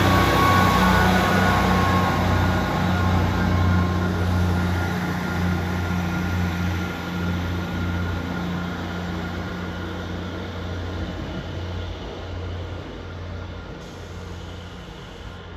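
Northern class 158 diesel multiple unit pulling away from the platform, its diesel engines' steady low drone fading as it recedes. A fainter high whine fades out within the first few seconds.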